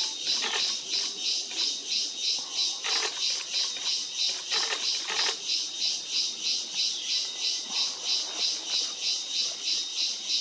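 A high-pitched animal chorus pulsing evenly at about three pulses a second over a steady high tone. A few faint short sounds lie beneath it.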